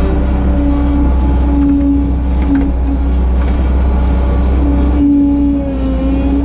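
Bobcat 743 skid steer engine running steadily under work, with a whine that breaks off and returns several times.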